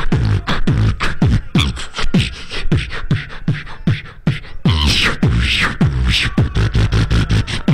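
Music: a beatboxed beat, with mouth-made kick drums and sharp hi-hat-like clicks in a steady, fast rhythm. A brief higher vocal sound comes in about five seconds in.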